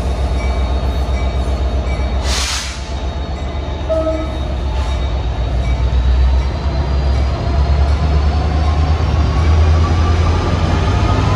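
NJ Transit diesel push-pull passenger train moving slowly: a steady low engine rumble under the rolling coaches. A short hiss of air comes about two seconds in, and through the second half a whine rises steadily in pitch as the sound grows louder.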